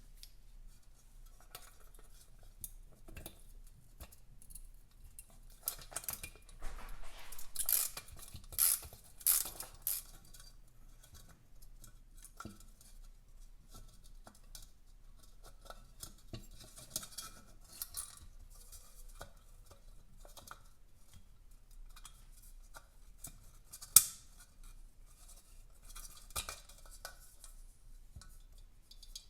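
Small metal parts and hand tools being handled during motorcycle disassembly: scattered clinks, clicks and scrapes, busiest and loudest in a run of scraping clinks about six to ten seconds in, with one sharp metallic click about 24 seconds in.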